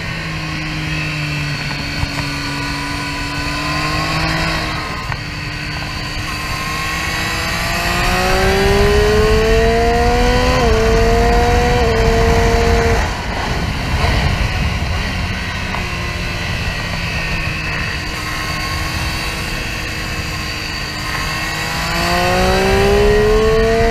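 Onboard sound of a Triumph Street Triple R's inline three-cylinder engine lapping a race track. Revs hold steady, climb and level off around the middle, drop away suddenly, run at a lower steady note through a long corner, then climb again near the end. Wind rush runs under the engine note.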